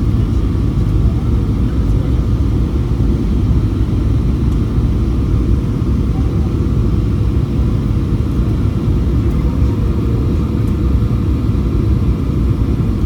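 Steady low cabin rumble inside a Boeing 737-800 airliner: the noise of the engines and the airflow over the fuselage, heard from a passenger seat.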